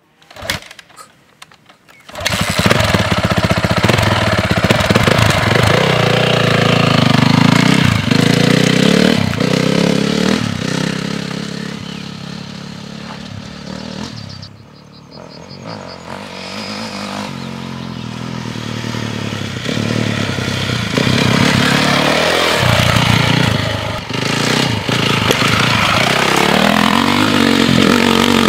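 2010 Honda CRF450 dirt bike's single-cylinder four-stroke engine, ridden hard with the throttle opening and closing. It comes in loud about two seconds in, fades as the bike moves away around the middle, and grows louder again as it comes back.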